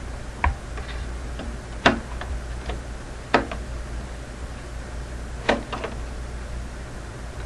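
Sharp plastic clicks and small taps of the white retaining levers on a desktop's memory slots being pressed open to release the RAM modules, four louder clicks spaced about a second and a half apart with lighter ticks between.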